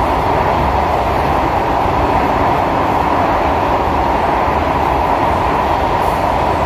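Cabin noise of an SMRT C151A metro train running between stations: a steady rumble and rush of wheels on rail, with a constant hum strongest in the middle range.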